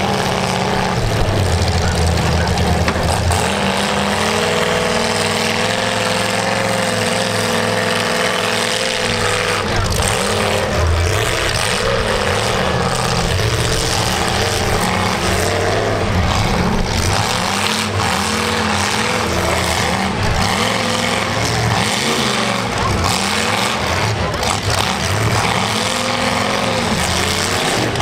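Demolition derby car engines running hard through open exhaust stacks, revving up and down over and over as the cars push against each other in the dirt.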